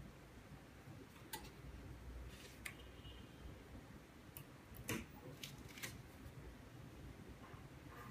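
Faint, scattered clicks and short scrapes of the manual glue-removal work on an iPhone 6 LCD, as the glue and polarizer film are worked off the glass on a hot plate. The loudest click comes about five seconds in, over a low steady hum.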